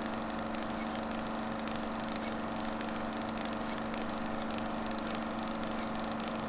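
A steady, unchanging droning hum with a low pitched tone running through it.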